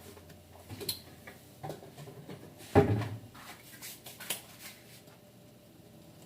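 Kitchen handling noise: a series of separate knocks and clunks, the loudest about three seconds in with a brief low ring after it.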